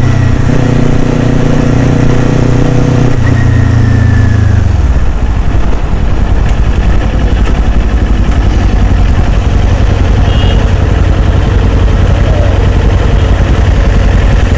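Motorcycle engine running at a steady pitch. About four to five seconds in, the pitch drops and it settles into a low, fast, even pulsing, as at idle or low revs.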